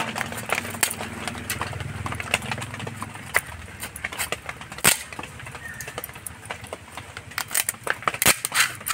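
Crab shell cracking and scraping against the steel edge of an upright fixed blade (boti) as the crab is cut and cleaned by hand: irregular sharp clicks and cracks, the loudest about five seconds in. A low engine hum underneath during the first few seconds.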